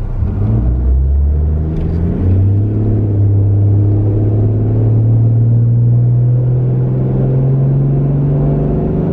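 Toyota Land Cruiser HDJ81V's 4.2-litre 1HD-T straight-six turbo diesel pulling away from a stop under acceleration, heard from inside the cabin. The engine note rises, drops as the gearbox shifts up about two seconds in, then climbs slowly and steadily through the next gear.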